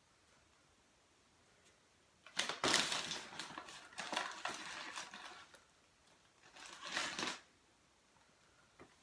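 Someone rummaging through things: rustling and clattering as objects are moved and handled, in a bout of about three seconds starting about two seconds in and a shorter one near the end.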